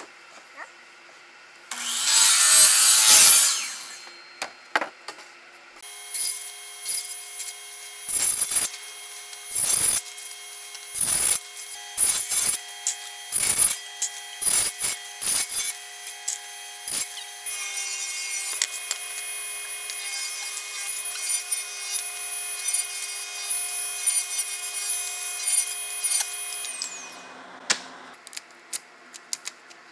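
A loud saw cut through wood about two seconds in, then a table saw running with a steady motor whine while cedar strips are ripped on it, first in many short cuts, then in a longer continuous rip. The saw winds down near the end.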